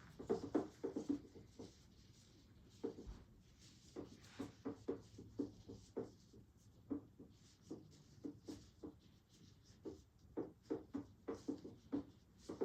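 Quiet handling sounds of tracheostomy ties being tied around the neck: soft, irregular taps and rustles, with a few sharper clicks.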